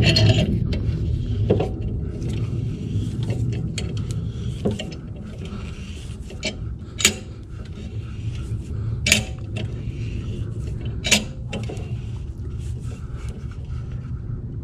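Steel C-clamp being screwed down by hand to push a brake caliper piston back into its bore, with scattered sharp metal clinks as the handle is turned, three louder ones near the middle, over a low steady hum.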